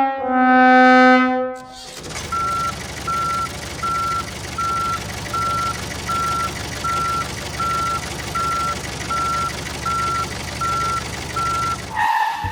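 A descending 'sad trombone' brass sound effect falls in steps and ends about two seconds in. Then a vehicle's reversing alarm beeps steadily, about once every three-quarters of a second, over a constant engine rumble.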